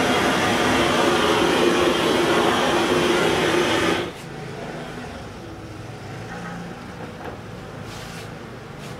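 A loud, steady electric-motor whir with a faint hum in it, like a vacuum or blower, stops abruptly about four seconds in. Quieter low background noise with a low hum follows.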